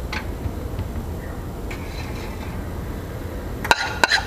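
A metal spoon clinking and scraping against a ceramic bowl, several sharp clinks in quick succession near the end, as butter and garlic mixture is scooped out. Before that, only a steady low background hum.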